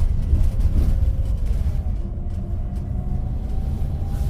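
Tour bus interior: steady low engine and road rumble while driving, with a faint whine that rises slowly in pitch in the second half.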